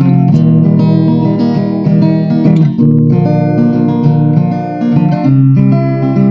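Background music: plucked acoustic guitar playing a melody over steady chords.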